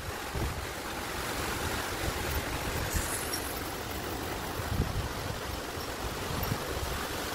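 Heavy thunderstorm rain falling, a steady dense hiss.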